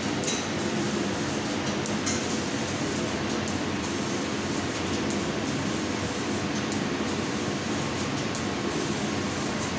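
CNC laser cutting machine cutting holes in sheet metal: a steady hiss and hum that runs without a break, its high hiss dropping away briefly several times as the head stops and starts between cuts.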